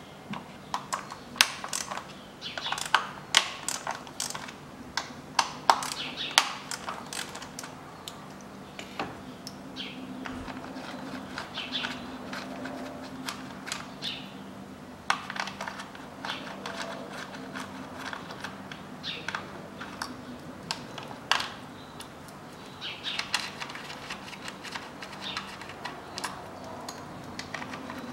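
Ratchet with a 10 mm socket clicking in quick runs as the ignition coil bolts are undone, with clinks of the metal tool against the engine.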